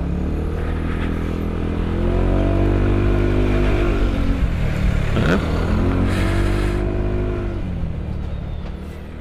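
Road vehicle engine and road noise, heard from a following car: the engine note climbs, drops sharply about five seconds in, climbs again and then eases off, as when pulling away through the gears. Fades out near the end.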